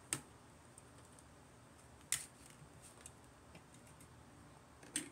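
Three sharp plastic snips, about two and three seconds apart, with faint ticks between: plastic model kit parts being cut from the runner.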